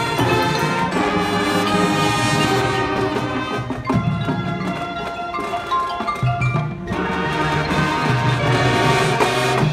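Marching band playing: brass in sustained chords with the front ensemble's mallet percussion. The music thins and drops a little in the middle, then fills out again.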